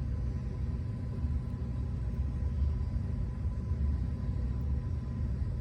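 Steady low background rumble with a faint electrical hum; no distinct clicks or handling noises stand out.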